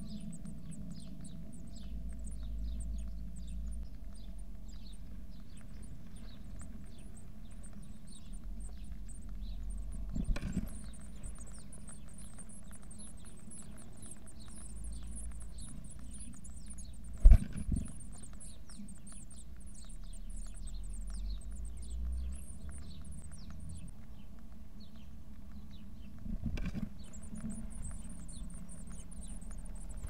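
Blue tit nestlings begging in a nest box: a continuous, rapid, very high-pitched cheeping, broken by a few knocks, the loudest about halfway through.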